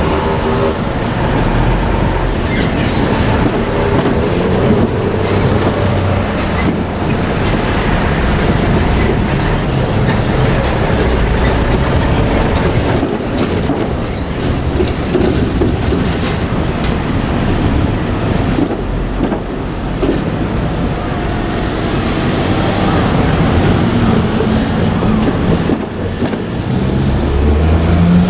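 A train running past at close range: a loud, steady running noise from wheels and vehicle that lasts throughout.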